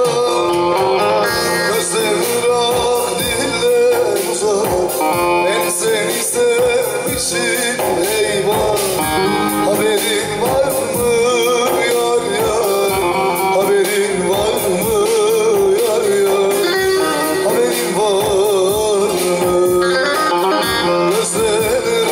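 A Teke-region Turkish folk song (türkü): a man sings over an amplified bağlama. The melody is ornamented and wavering.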